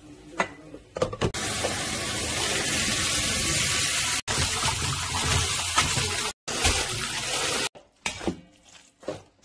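Tap water running hard into a bowl in the sink while boiled thin wheat noodles are rinsed, a steady splashing rush broken twice by sudden cuts. It stops about two seconds before the end, followed by a few light knocks.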